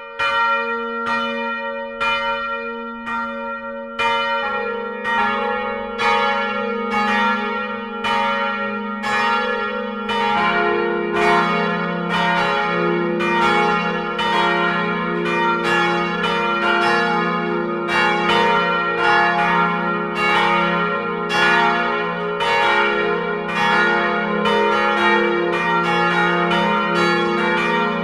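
Swinging church bells of the Lutherkirche ringing up into a full peal. One bell sounds alone at first, a lower bell joins about four seconds in, and a still lower third bell joins about ten seconds in; then all ring together.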